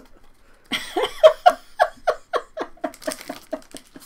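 A person laughing in a long run of short 'ha' bursts, about four a second, starting about a second in.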